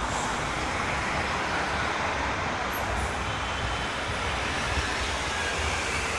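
Road traffic: cars and vans driving past close by, a steady rush of engine and tyre noise. A brief sharp click about three seconds in.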